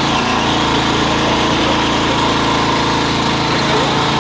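Motor-driven corn mill running steadily as corn kernels are fed into its hopper and ground into masa.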